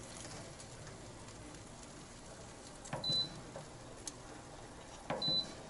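Two short high beeps, each with a click, from the Cosori air fryer oven's control panel about three and five seconds in, as the oven is set and started; a faint steady hum lies underneath.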